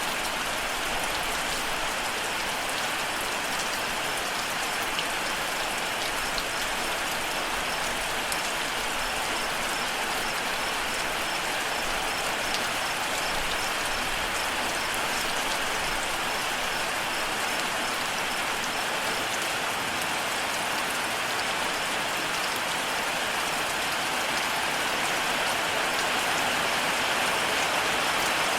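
Steady rain falling, with a cricket chirping in a high, evenly pulsed trill through the middle stretch. The rain grows slightly louder near the end.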